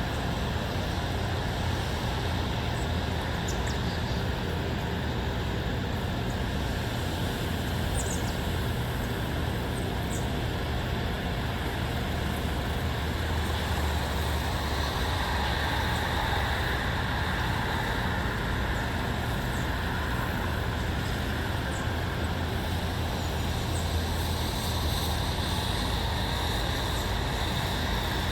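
Steady outdoor ambient noise: an even low rumble with hiss over it. A few faint, short high ticks sound in the first third.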